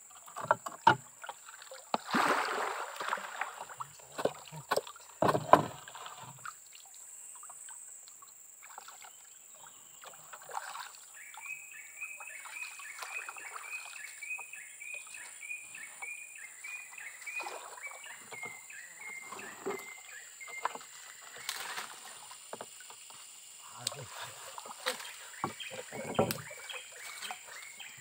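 Knocks, bumps and water splashes from a small fishing boat, loudest in a few bursts near the start. A high chirping call repeats in quick runs through the second half.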